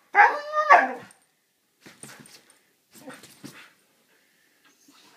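Siberian husky giving a loud, drawn-out whining call lasting about a second, followed by two softer, noisy grumbles.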